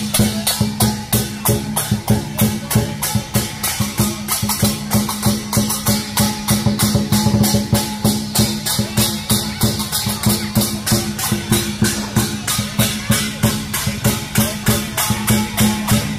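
Vietnamese lion-dance percussion: a drum and clashing cymbals beating a fast, even rhythm of about four strikes a second.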